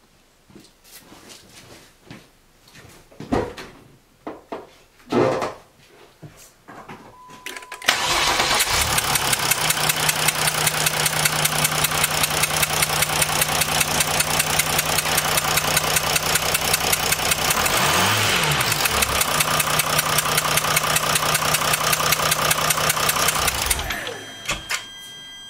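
A few knocks and a short beep, then the Mercedes OM642 V6 turbodiesel of a Jeep Grand Cherokee CRD cranks and starts about eight seconds in, runs at an even rhythmic idle, and shuts off near the end. The engine has a chugging idle that the owner puts down to a failed copper seal on one fuel injector, leaving that cylinder short of compression and not firing every time.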